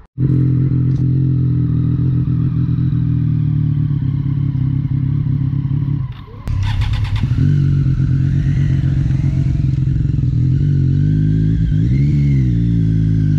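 A motorcycle engine idling steadily, dipping briefly about six seconds in. A quick rattle of clicks follows the dip, and the revs rise and fall briefly near the end.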